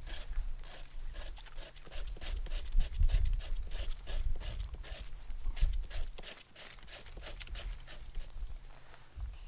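Short pieces of firewood cut from a dead hardwood tree knocking and clattering against each other as they are handled and piled, a quick, irregular run of wooden knocks with a couple of louder ones about three seconds in and just before six seconds.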